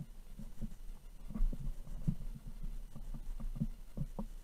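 Handling noise from a camera mounted on an airsoft rifle's rail: irregular muffled low thumps and knocks, a few a second, as the rifle is carried and jostled, over a faint steady low rumble.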